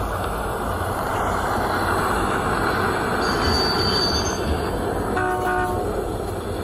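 A car's engine and tyres make a loud, steady rumble as it pulls up to a gas station pump, with a short horn-like tone about five seconds in. The sound is a film soundtrack played through a phone's speaker.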